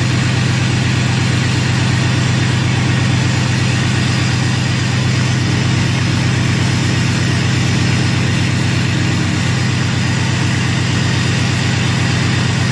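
Cummins 6.7 straight-six turbo-diesel idling steadily through a 4-inch MBRP turbo-back exhaust, with an even, deep drone and no revving.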